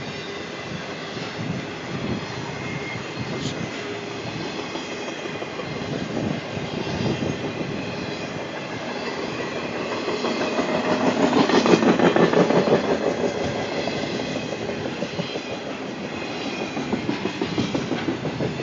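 Freight train rolling past, its wheels clicking rapidly over the rail joints in a steady clatter that swells louder in the middle.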